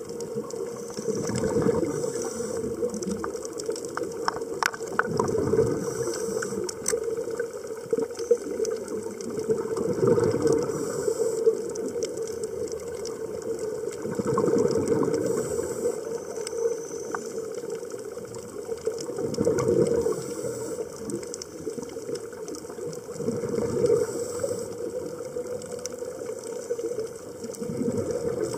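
Scuba breathing heard underwater: exhaled bubbles from a regulator rumble out in surges about every four to five seconds, over a steady crackle of scattered clicks.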